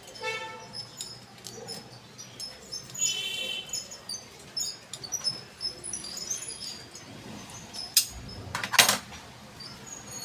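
Light metallic clicks and scrapes of a box spanner working the jet nozzle off a gas stove burner, with two sharp knocks about eight seconds in. Faint bird chirps behind.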